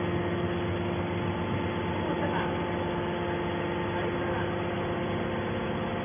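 Hydraulic power unit of a large scrap metal baler, an electric motor driving the hydraulic pump, running steadily: a continuous hum with several steady tones.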